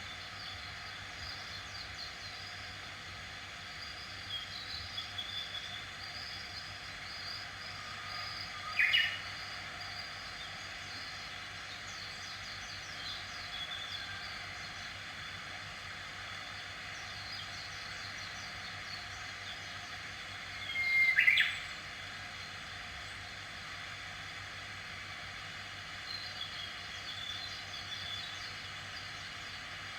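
Wild birds chirping and calling over a steady background hiss, with two short, louder calls: one about nine seconds in and one about twenty-one seconds in.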